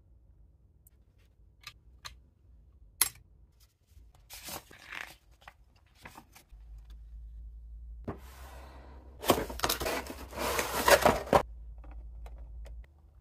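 Unboxing packaging handled by hand: a few light clicks and a short paper rustle, then a few seconds of loud crackling, tearing-like scraping as a cardboard box is opened and a clear plastic blister tray is drawn out.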